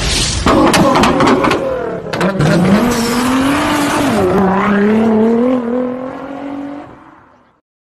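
Car engine revving sound effect for an animated logo intro, with sharp clicks in the first two seconds. The engine note rises, dips about four seconds in, then fades out near the end.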